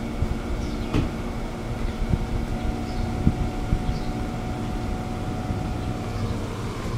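Amtrak Northeast Regional passenger train standing at the platform, giving a steady low rumble and hum of running equipment, with a few sharp knocks in the first few seconds.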